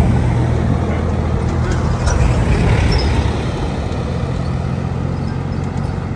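Motor vehicle engine running steadily close by, a low hum, with road traffic noise that swells louder about two to three seconds in.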